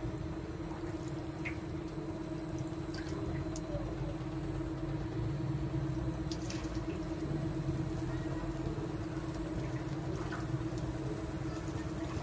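Meat roasting over charcoal embers, with a few faint crackles and drips of liquid from a pan hung above, over a steady low hum.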